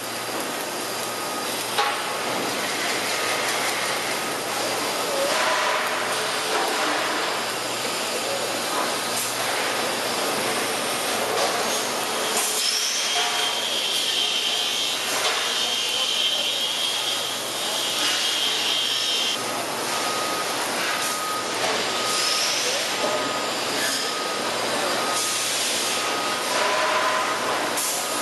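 Robotic wire-fed arc welder (MIG) running a weld bead around a turning steel tank, a steady hissing crackle of the arc.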